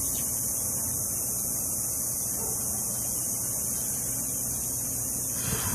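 Steady electrical hum with a constant hiss: room tone, with no distinct sound events.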